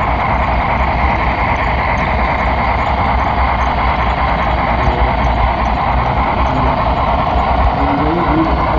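HO scale model train rolling on its track, heard close up from a camera riding on a flatcar pushed by a Southern Pacific Cab Forward model: a steady, loud rolling rumble and hum of wheels and motor.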